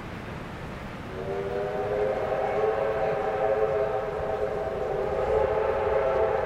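Victorian Railways R class Hudson steam locomotive's whistle, sounding a long, steady multi-note chord that starts about a second in, over the low rumble of the train.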